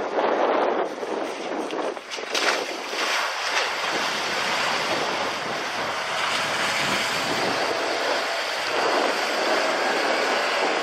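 Compact SUV wading through deep water: a steady rushing and splashing of water pushed aside by the body and wheels, with the engine running underneath.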